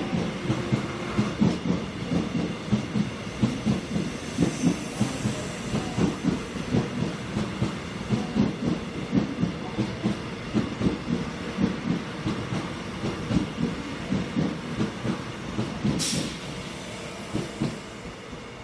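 Seoul Metro Line 1 electric train running out of the station, its wheels clattering over rail joints and points at about two to three clacks a second. There is a brief hiss about 16 seconds in, and the sound fades near the end as the train draws away.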